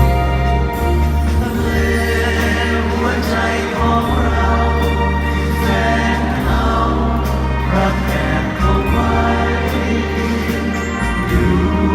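Live band music with a sustained bass line and chords, and many voices singing together.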